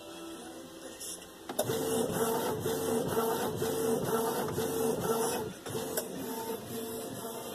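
Canon inkjet printer printing a sheet: the print-head carriage and feed motor run in a quick, even rhythm of about three strokes a second, with a whirring pitch. It starts about a second and a half in and drops to a quieter level after about five and a half seconds.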